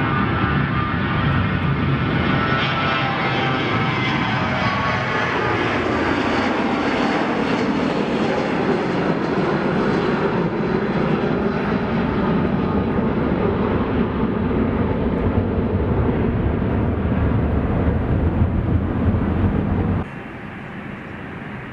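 Airliner engines passing close by, with a whine of many steady tones and a pitch that falls as the aircraft goes past. Near the end the level drops suddenly.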